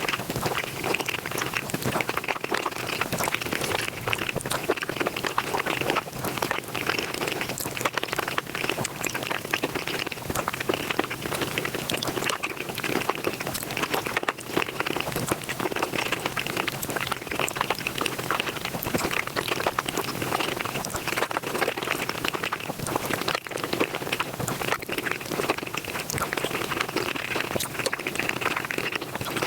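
Close-miked mukbang eating sounds sped up five times: chewing and mouth noises run together into a dense, continuous crackling patter of tiny clicks.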